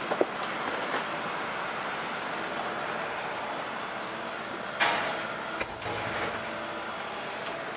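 Heavy construction machinery running steadily at a street dig. There is a short, loud burst of noise just under five seconds in.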